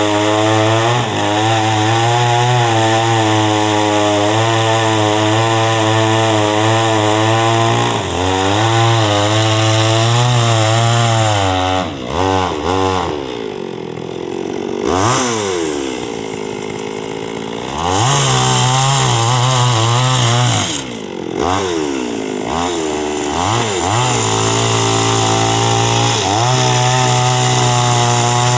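Two-stroke chainsaw engine running at high revs, dropping back toward idle about twelve seconds in with several short throttle blips, revving up again, and settling back to steady high revs near the end.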